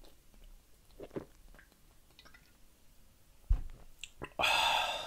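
Drinking beer from a glass bottle: faint gulps and mouth clicks, a sharp knock about three and a half seconds in, then a loud, short breathy exhale near the end.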